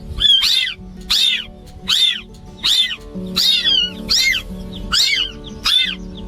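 A cat meowing over and over, about ten short, high-pitched meows at an even pace of roughly one and a half a second, with soft background music holding steady low notes underneath.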